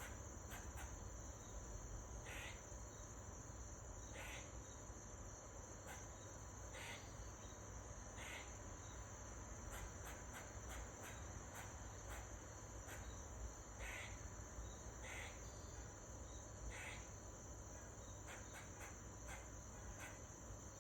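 A squirrel giving short, harsh barking calls every one to three seconds, over a steady high-pitched chorus of crickets.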